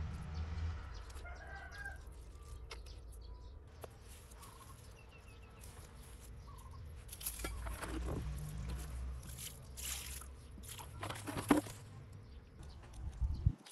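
Dry soil and grass rustling and crunching in short bursts as hands press loose earth around a newly planted seedling, loudest near the end.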